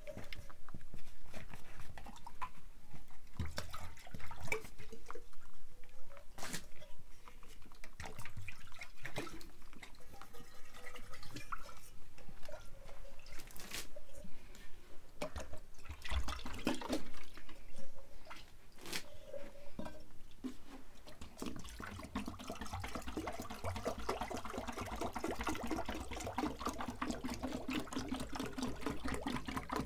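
Rabbits eating dry grain from a tray and shifting about on straw: scattered small crunches and rustles, thickening into a dense, steady crackle over the last third.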